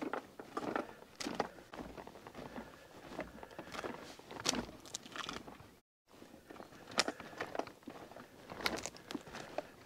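Footsteps crunching irregularly over dry leaf litter, twigs and sandy ground, with a brief silent gap about six seconds in.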